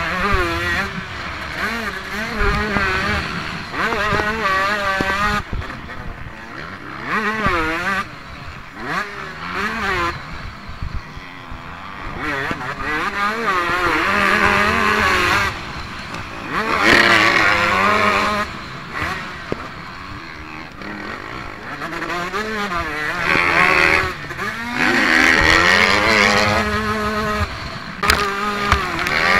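Motocross bike engine heard from the rider's onboard camera, revving up and down hard as the throttle opens and closes over jumps and turns, with louder full-throttle stretches and quieter lulls when the throttle is shut off.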